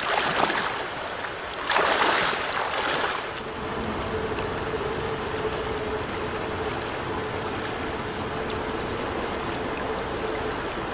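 Shallow, fast trout-stream riffle rushing close by, with two louder bursts of splashing and knocking in the first three seconds. A faint steady hum sits under the water from about four seconds in.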